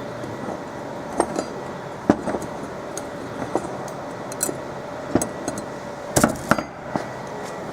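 Light metallic clicks and clinks of small lens parts and tools being handled while a fiber laser marker's field lens is taken apart, scattered irregularly over a steady background hum. A quick cluster of louder clinks comes about six seconds in.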